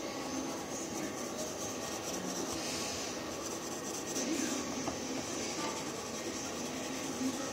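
Wooden pencil scratching on paper as a face outline is sketched, over a steady background noise.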